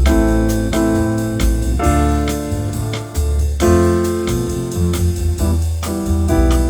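Background music: piano or electric-piano chords over a steady bass line and beat.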